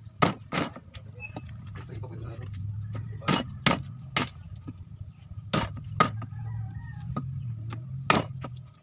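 Bolo knife chopping pieces of puffer fish on a round wooden chopping block: about eight sharp knocks of the blade into the wood, several in quick pairs. A low steady hum runs underneath.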